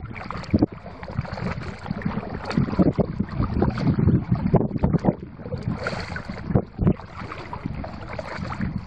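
Kayak being paddled: water splashing and lapping with irregular knocks from the paddle strokes, under a low rumble of wind on the microphone.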